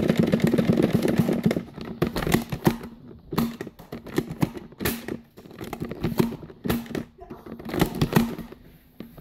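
Irregular sharp clicks and knocks, denser in the first second or so: Nerf foam-dart blasters being primed and fired, with darts striking, during a close-range dart fight.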